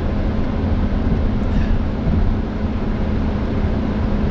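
Steady road and engine noise inside the cabin of a moving vehicle, a low rumble with a constant hum.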